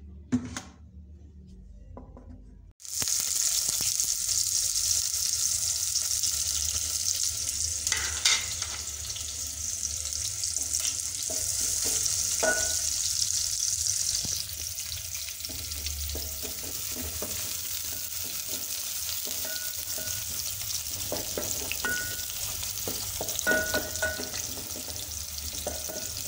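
Sliced red onions frying in hot oil in an aluminium pot. The sizzling starts suddenly about three seconds in, as the onions go into the oil, and eases a little about halfway through. A wooden spoon stirring them knocks against the pot now and then.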